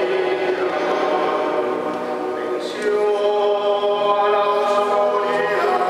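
Congregation singing a hymn together in long held notes, with a short break between phrases a little before the middle and the next phrase then starting.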